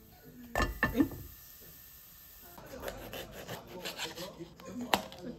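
A wooden spatula scraping and knocking against a frying pan as a hotteok is flipped, then a knife and fork sawing through the hotteok and scraping across a plate in quick strokes, with a sharp clink near the end.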